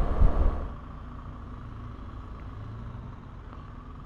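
Wind and road rush from a BMW R1200GS boxer-twin motorcycle at road speed, which cuts off suddenly under a second in. Then comes the quieter, steady running of the bike's engine at low speed.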